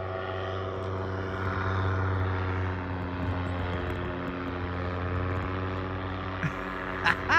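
Paramotor (powered paraglider) engine and propeller droning steadily as it flies away after take-off, easing off slightly after a couple of seconds. A brief rising-and-falling call comes right at the end.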